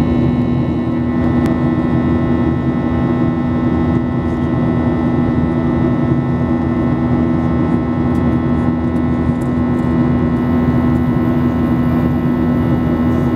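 Boeing 737-800 cabin noise in flight: the steady drone of its CFM56-7B turbofan engines and the airflow past the fuselage, heard from a window seat by the wing, with a strong steady low hum and a fainter high tone over it.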